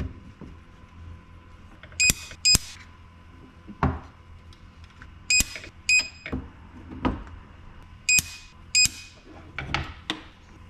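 Battery-powered spot welder board firing on 21700 lithium-ion cells: three pairs of welds about three seconds apart, each a sharp snap with a short beep. Softer knocks from handling the cells and leads come in between.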